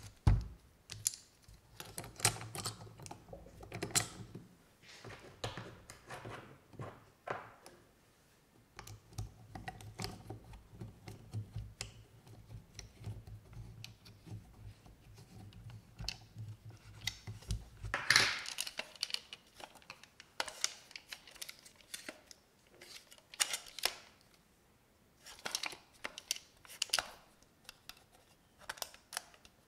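Plastic clicks, rattles and knocks of AA batteries being pushed into a Super 8 camera's battery holder and the holder being fitted into the camera, then the click of its buttons being pressed. A faint low hum runs for several seconds midway, ending with a sharp knock.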